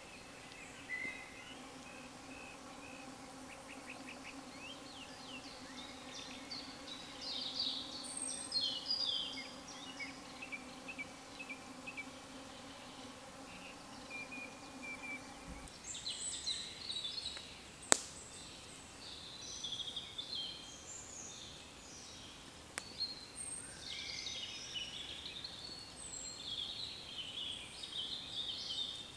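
Several songbirds singing and calling over one another in woodland. A steady low hum runs under the first half and stops abruptly about halfway through. A single sharp click comes a couple of seconds later.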